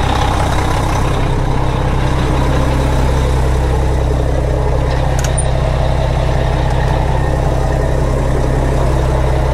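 Diesel semi-truck engine idling steadily, with one short click about five seconds in.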